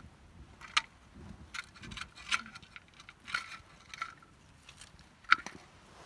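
Irregular small clicks and taps as charred, fire-roasted sheep meat is handled and broken apart over a metal plate, with two sharper knocks, one about a second in and one near the end.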